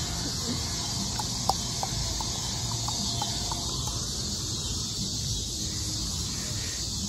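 Steady high hiss of open-air ambience, with a run of short, high squeaks or chirps through the first half and one brief click about one and a half seconds in.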